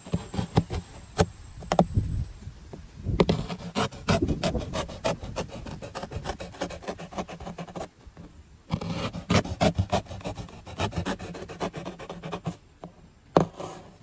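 Small knife sawing through corrugated cardboard in quick back-and-forth strokes, a rapid run of scraping rasps. It pauses for about a second around the middle and again shortly before the end.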